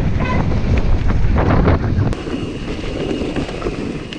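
Wind buffeting a mountain biker's onboard camera microphone, over the rumble and knocks of the bike running down a rough trail, with a short high squeal just after the start. About two seconds in the sound changes abruptly: the rumble drops and a faint steady high whine carries on.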